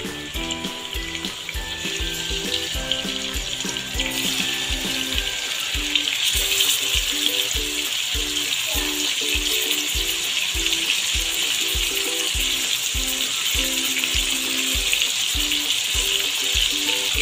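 Marinated chicken pieces sizzling as they fry in hot oil in a steel kadhai. The sizzle grows louder about four and six seconds in as more pieces go into the pan. Background music with a steady beat plays underneath.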